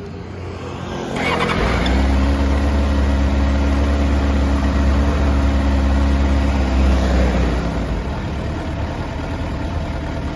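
Stock 2007 Suzuki GSR600 inline-four started on the electric starter about a second in, catching and settling into a steady idle. The idle eases down slightly near the end.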